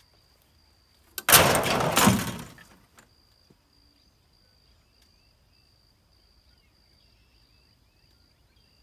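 A sudden loud clatter of junked mower metal being struck and shaken about a second in, rattling off over about a second and a half. After it there is only a faint steady high tone with a few faint chirps.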